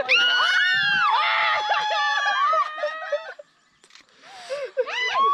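Several high-pitched human shrieks and squeals overlapping, gliding up and down in pitch for about three seconds. After a short pause comes one more rising and falling shriek near the end.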